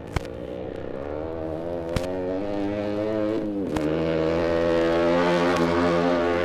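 An engine running steadily and growing louder, its pitch dipping briefly a little past the middle, with a few sharp clicks on top.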